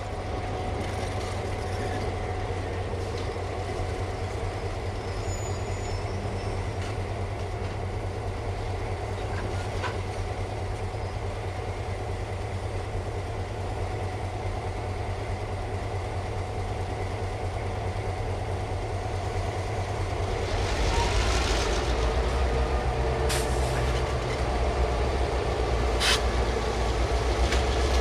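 EMD F59PH diesel locomotive's prime mover running with a steady low drone as the train pulls out, growing louder about twenty seconds in. A brief hiss follows, then two sharp clicks a few seconds apart.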